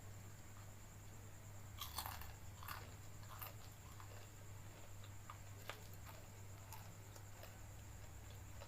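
Close-miked mouth sounds of someone eating and chewing food, with a cluster of wet clicks and smacks about two seconds in and scattered single clicks after it, over a steady low electrical hum.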